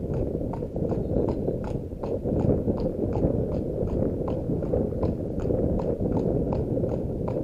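A horse's hooves clip-clopping on a tarmac road at a walk, about three hoofbeats a second, over a steady low rumble.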